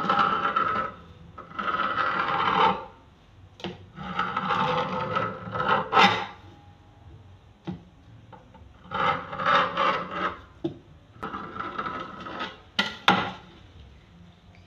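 A knife scraping along the worktop as it cuts rolled dough around the rim of a metal pan, in a series of rasping strokes of a second or two each, with a couple of sharp clicks.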